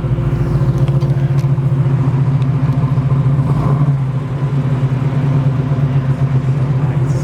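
A Chevrolet 396 big-block V8 running through headers and a Flowmaster dual exhaust, with a steady, even exhaust pulse that is heard as sounding pretty.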